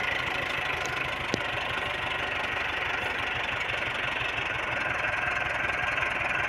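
Massey Ferguson 385 tractor's four-cylinder diesel engine running steadily at low speed while it pulls a loaded trolley.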